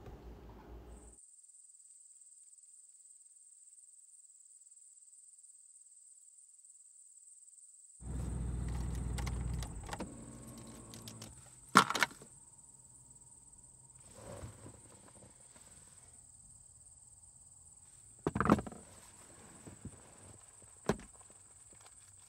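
Mostly quiet, with a thin, steady high-pitched tone throughout. About eight seconds in comes a low rumble lasting about two seconds, then several sharp knocks and clicks, the loudest near the middle and again later.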